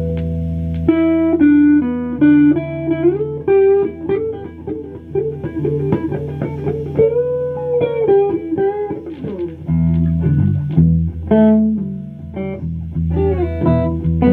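Electric guitar, a white Les Paul-style solid body, played solo: a held chord rings out, then a single-note lead line with string bends, moving down to lower notes about ten seconds in.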